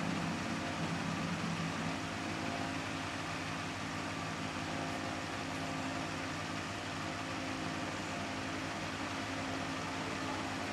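Steady background hum and hiss, unchanging, with no distinct events.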